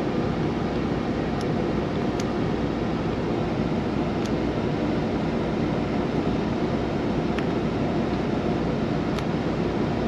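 Peterbilt 579 semi truck's diesel engine idling steadily, heard from inside the cab, with the set-RPM high idle switched on to warm the engine up.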